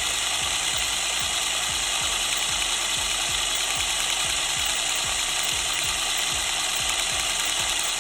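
A small drill running steadily as it drills out the rivet head on a die-cast toy car's metal base, with a regular rapid pulse of about four strokes a second.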